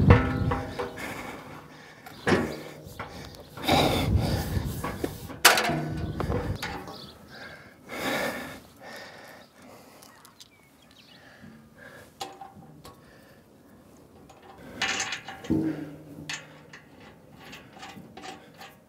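Clanks, knocks and scrapes of steel cattle-alley parts being handled and fitted together by hand. They come a few seconds apart, louder through the first half, with a quiet spell before another couple near the end.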